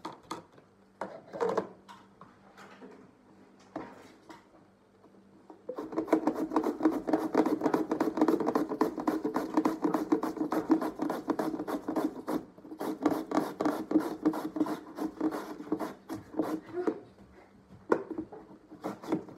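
White radish being shredded on a plastic julienne grater into a container: quick, rhythmic rasping strokes as the radish is pushed back and forth over the blades. A few scattered knocks come first, the steady grating starts about six seconds in, with brief pauses twice.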